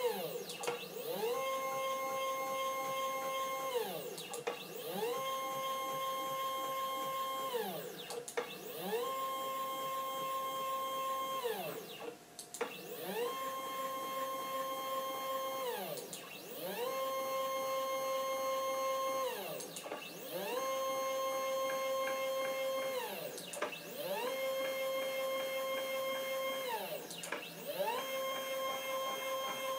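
Stepper motors driving the leadscrews of a Proxxon KT150 cross table converted to CNC: a whine that rises in pitch as each move speeds up, holds steady, then falls as it slows to a stop. The cycle repeats about every three and a half seconds, with brief pauses between, about eight moves in all.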